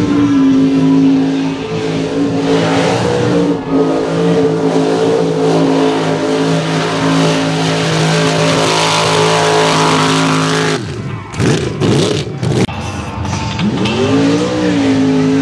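Mud racing pickup trucks' engines held at high, steady revs as they run through the mud pit. About eleven seconds in the sound drops briefly with a few sharp knocks, then another truck's engine revs up, its pitch rising and then holding near the end.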